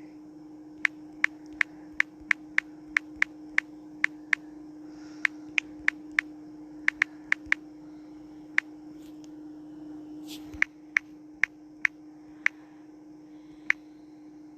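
Phone on-screen keyboard clicking as text is typed: about two dozen sharp, short key clicks in irregular runs, with a longer pause about two-thirds of the way through. A steady hum runs underneath.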